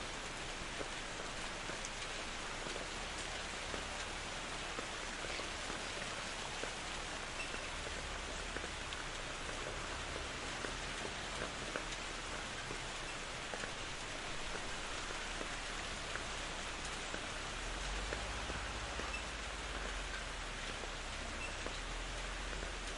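Steady rain falling, a dense, even patter of drops. A low rumble swells underneath in the last five seconds or so.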